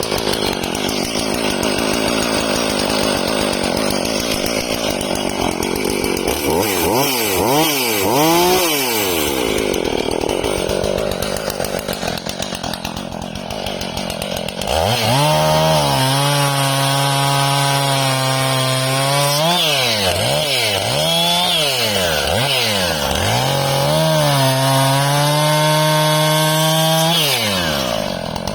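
Jonsered CS2245S two-stroke chainsaw running at high throttle and cutting wood. Its pitch drops and recovers several times under load. From about halfway it settles into a clearer steady high whine, broken by repeated dips.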